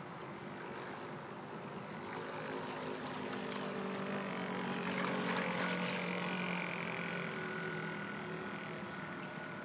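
Motor of a scratch-built radio-controlled model pilot boat running with a steady hum. It grows louder as the boat passes close, peaking about halfway through, then eases off, with a higher whine in the second half.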